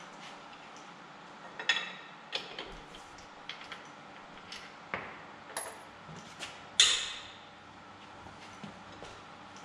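Scattered metallic clinks and knocks of lug bolts and hand tools being handled at a car wheel during a tyre change. The loudest comes about seven seconds in and rings briefly.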